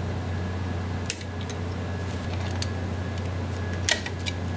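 A few sharp metallic clicks of pliers and brake-shoe springs being worked on an MGB's rear drum brake, the loudest near the end, over a steady low hum.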